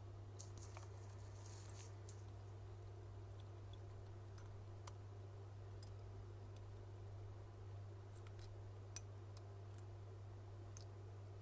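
Faint, scattered clicks and light scrapes of small hand tools working inside an opened Apple Watch, prying at its battery, over a steady low hum. The sharpest click comes about nine seconds in.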